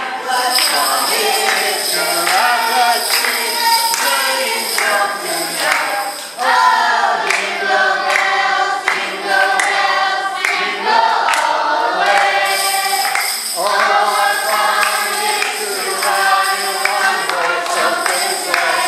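A group of voices singing a Christmas song together, with bells jingling along.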